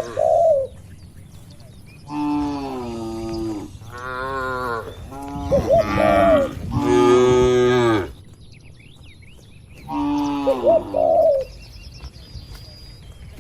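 Cattle mooing: four long, drawn-out calls, the loudest and longest around the middle, with the last about ten seconds in. A dove coos briefly near the start, in the middle and near the last moo, and small birds chirp faintly.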